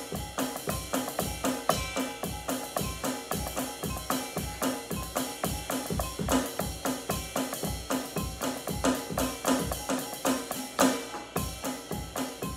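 An electronic drum kit playing a fast, steady groove of bass drum, snare and cymbal strokes at an even tempo. A louder accented hit with a cymbal crash comes near the end.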